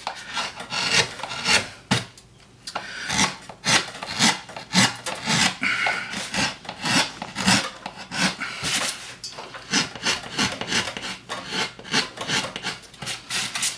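Hand gouge carving a woodcut block: a quick run of short scraping cuts through the wood, about three a second, with a brief pause about two seconds in.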